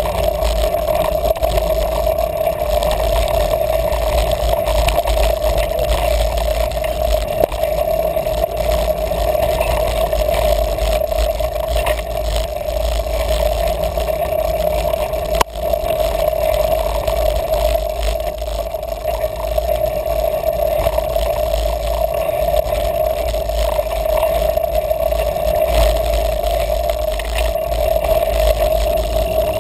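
Mountain bike riding on a dirt singletrack heard through a bike- or helmet-mounted action camera: a steady low rumble of wind and tyres on the trail with a constant hum, and light rattles and clicks from the bike over bumps.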